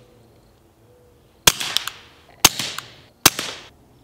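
Three .22 LR shots from a Beretta 21A Bobcat pistol, the first about a second and a half in and the next two under a second apart, each sharp crack trailing off in a short echo.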